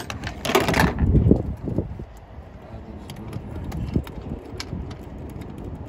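Hand ratchet clicking and tools knocking at an irregular pace as small bolts are run down and tightened in a car engine bay, with a brief rush of noise about half a second in.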